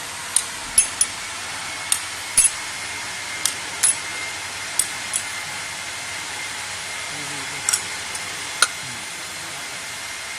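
Pieces of cut glass clinking sharply against each other about a dozen times at irregular intervals, over a steady hiss with a faint high whine.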